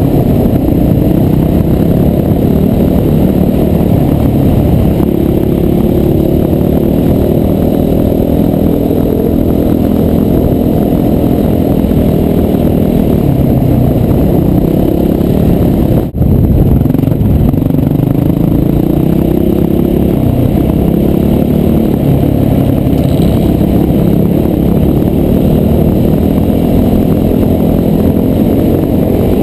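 Dirt bike engine running hard under load, heard from a helmet-mounted camera, its pitch rising and falling as the rider accelerates and shifts gears. The sound drops out for an instant about halfway through.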